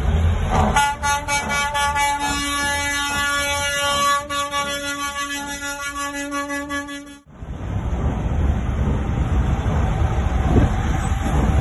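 Semi truck air horn sounding one long, steady blast of about six seconds, starting just under a second in and cutting off abruptly; after it, a steady low rumble.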